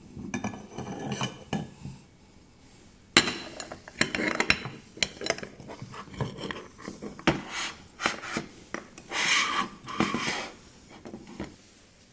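Metal meat grinder working eyeball candy: rapid clicking, scraping and grinding, a short run in the first two seconds, then a sharp start about three seconds in and a longer run that dies away near the end.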